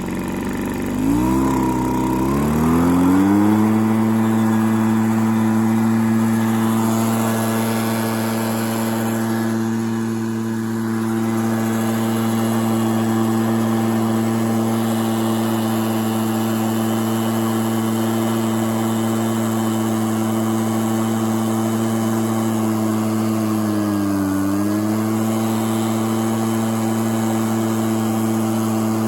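Echo PB265L backpack blower's small two-stroke engine running after a pull start: it revs up over the first few seconds, then holds a steady high speed, sags briefly about 24 seconds in and recovers. It now starts and runs on new fuel hoses and a new fuel filter.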